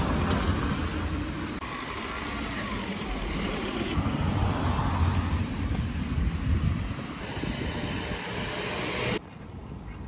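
Outdoor city street ambience: a steady rumble of traffic with wind on the microphone. The sound changes abruptly at cuts, about a second and a half in and again about nine seconds in, where it turns quieter.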